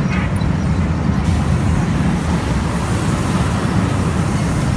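Steady, loud low rumbling noise with no distinct events, the kind made by a vehicle or ride in motion.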